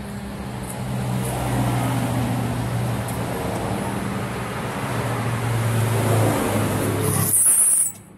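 Steady road-vehicle and traffic noise with a low engine hum, swelling about a second in. A brief high hiss comes near the end, and then the sound cuts off suddenly.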